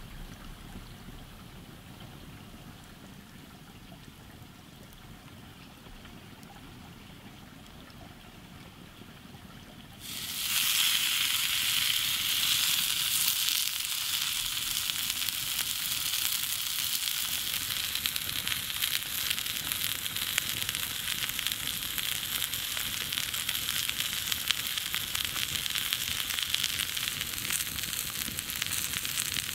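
Oil in a cast-iron skillet over a wood fire, with the fire crackling quietly; about ten seconds in, a raw bone-in ribeye steak goes into the hot oil and starts sizzling loudly, a steady searing hiss that keeps on.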